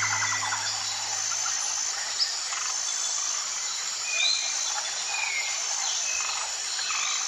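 Nature ambience of insects chirping steadily with a few short bird chirps. Low music tones fade out about two seconds in.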